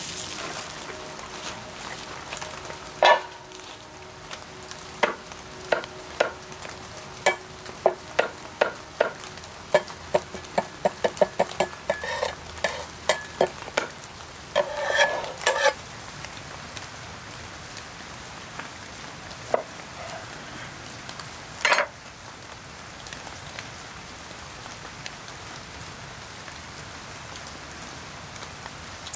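Cranberries and sugar sizzling steadily in a pan, over which a cleaver chops on a wooden cutting board: a run of sharp knocks that quicken partway through, then a short scraping burst and one last loud knock.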